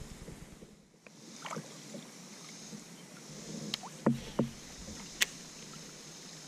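A few sharp clicks and knocks over a faint steady hiss, from a baitcasting rod and reel being handled in a kayak.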